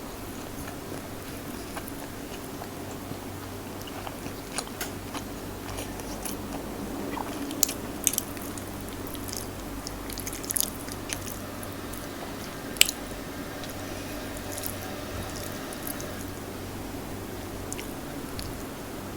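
Close-up eating sounds: chewing and biting with scattered sharp crunches or clicks, the loudest about two-thirds of the way through, over a steady low hum.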